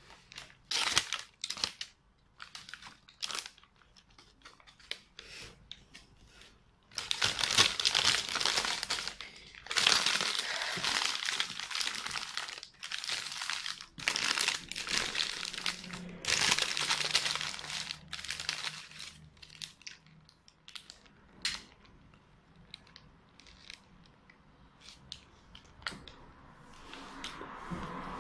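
Paper wrapper of a Burger King Whopper crinkling and crumpling as it is unwrapped by hand, in irregular rustling stretches. The rustling is heaviest in a long run from about a quarter to two-thirds of the way through, with sparser crackles before and after.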